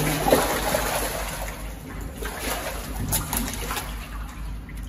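Shallow muddy water splashing and sloshing as a person wades and gropes with hands through thick mud, with a few sharper splashes.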